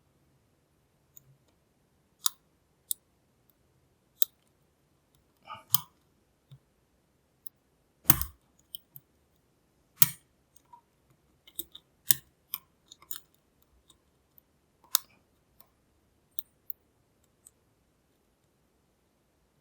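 Lock pick tapping and clicking inside a Lockwood V7 padlock as it is picked: sparse, irregular sharp metallic clicks with pauses between, the loudest about 8 and 10 seconds in.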